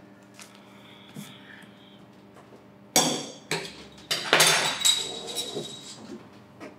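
Glassware clinking and clattering behind a bar as a beer is fetched: after a quiet stretch, a sudden clatter about three seconds in, then a run of ringing glass clinks and knocks.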